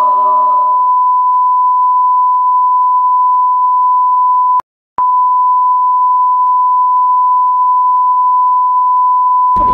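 A loud, steady 1 kHz sine-wave beep like a broadcast test tone. It cuts out for about half a second a little before halfway, then resumes unchanged.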